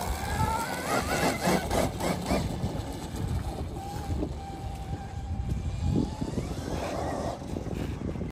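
Electric dirt bike motor whining as it pulls away, rising in pitch twice early on and then holding a steady pitch, over a constant low rumble.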